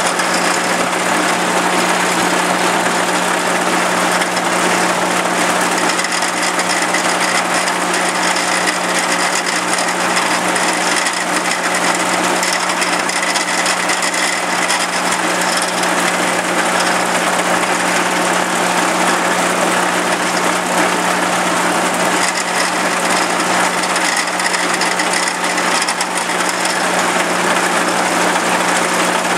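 Tractor engine and the old trailed forage harvester it drives running steadily at constant speed, a loud even mechanical din with a steady low hum under it.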